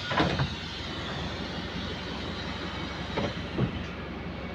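Interior of a Wright StreetLite single-decker bus on the move: steady low engine drone, with body rattles and knocks a few times, about a quarter second in and again around three seconds in. The bus has a small exhaust leak.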